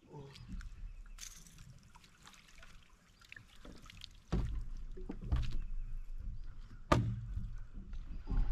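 A smallmouth bass being landed in a net: light splashing and dripping water as the net comes up out of the lake, then low thumps and knocks on the boat deck, the sharpest knock near the end.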